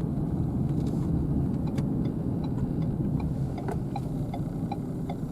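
Steady road and engine noise of a car being driven, heard from inside the cabin, with faint light ticks in the second half.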